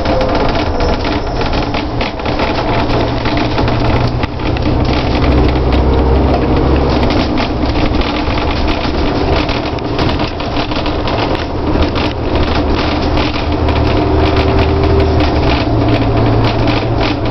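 Double-decker bus under way, heard from the upper deck: a steady low engine drone with a faint whine that drifts up and down, and frequent rattles and clicks from the bodywork and fittings.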